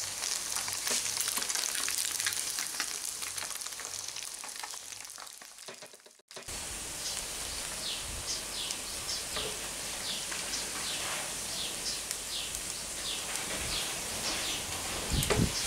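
Flour-coated tadpoles deep-frying in a pan of oil, a dense crackling sizzle that fades away about six seconds in. After that, outdoor ambience with a bird giving short falling chirps over and over, and a low bump near the end.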